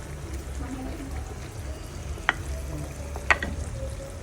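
Pork ribs sizzling in a pan, with two sharp clicks about a second apart, the second louder.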